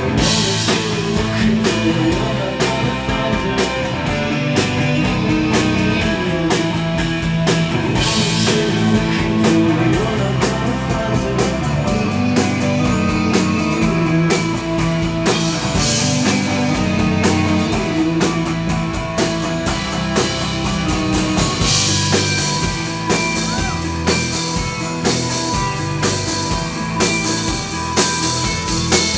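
Rock band playing live: strummed acoustic guitar, electric guitar and drum kit keeping a steady beat.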